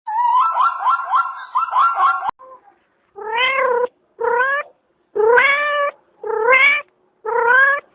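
A domestic cat meowing five times in quick succession, each meow rising in pitch. Before it, for about the first two seconds, a rapid repeating high chirping cuts off abruptly.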